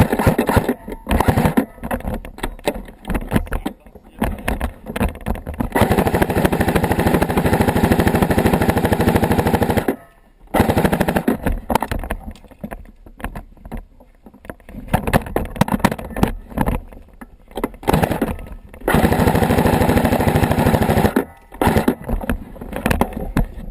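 Airsoft guns firing on full auto in rapid bursts: one long burst of about four seconds, another of about two seconds later on, and scattered short bursts and single shots between.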